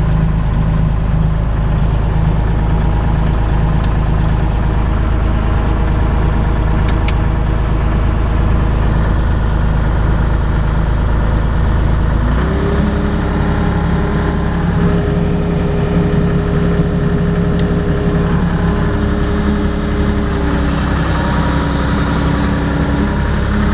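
John Deere 260 skid steer's diesel engine running steadily. About halfway through the engine note changes abruptly and a higher steady tone joins it.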